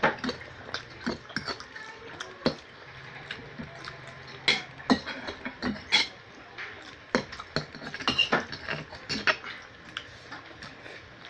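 Spaghetti being eaten: forks clinking and scraping on plates, with mouth sounds of slurping and chewing, heard as irregular sharp clicks.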